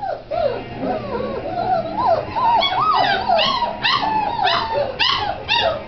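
Great Dane puppies yipping and whining in a rapid string of short, high, rising-and-falling cries. The cries overlap and grow louder and more crowded about two seconds in.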